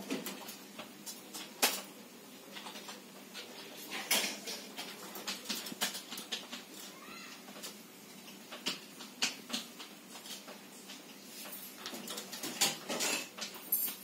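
Rose-ringed parakeet clambering upside down over a wire cage, its grip on the mesh making scattered clicks and light rattles, with a few sharper clicks.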